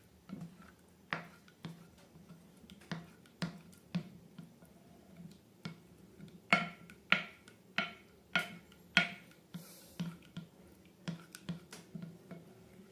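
Slime being squeezed and worked by hand, giving a string of sharp, irregular clicking pops, with a run of louder ones about halfway through.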